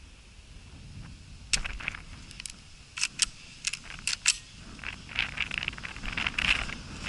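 Shotgun being handled: a string of sharp metallic clicks and clacks over about three seconds, then rustling of clothing and movement.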